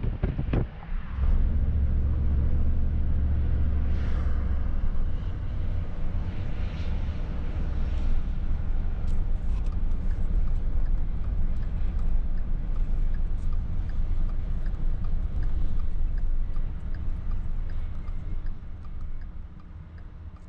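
Road and engine noise of a moving vehicle heard from inside its cabin: a steady low rumble, with a faint regular ticking for several seconds in the middle. The noise drops away near the end.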